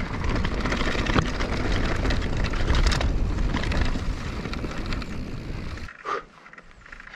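Canyon Torque enduro mountain bike rolling fast over a rocky singletrack: tyres crunching on stones and the bike rattling over bumps, with wind buffeting the handlebar-mounted action camera's microphone. The noise drops away about six seconds in.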